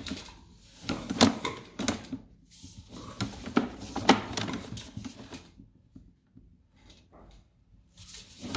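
Sewer inspection camera and its push cable being worked through a backwater valve access into a sewer line, with irregular knocks, clicks and scraping against the pipe fitting. The knocks come thick for about five seconds, then thin out to a few faint clicks.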